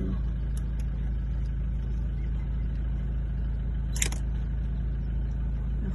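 A vehicle engine idling with a steady low hum, and one brief sharp click about four seconds in.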